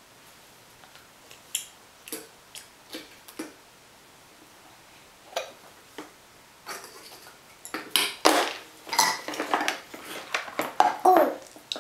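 Toddlers' hands, food and a plastic sippy cup tapping and knocking on plastic high-chair trays. The sound is sparse single clicks at first and turns into a busier, louder clatter in the second half.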